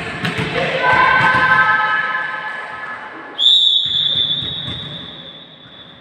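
Referee's whistle blown once about halfway through, a single high steady blast that fades slowly in the hall's echo. Before it, a few sharp knocks and mixed hall noise.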